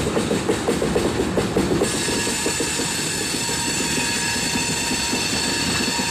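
Train passing close by: rail cars clacking over the rail joints at a quick, even beat. About two seconds in, the clacking gives way to a steady, high-pitched squeal of the wheels over a continuous rumble.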